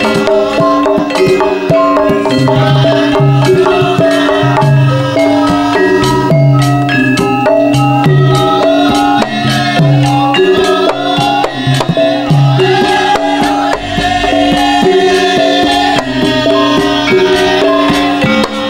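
Javanese gamelan music for a Lengger dance: struck metallophones play a steady, repeating melody over regular, deep hand-drum (kendang) strokes.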